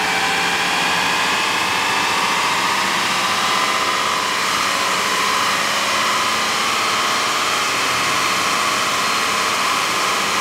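Porsche Taycan's electric drive whining as its wheels spin on a roller test stand, over steady tyre-and-roller noise. The whine climbs in pitch over the first few seconds, then holds steady.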